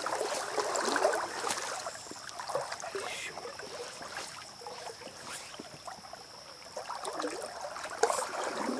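Shallow creek riffle gurgling and trickling around a wading angler, with a faint steady high-pitched tone joining about three seconds in. A brief rustle near the end as the fly line is handled.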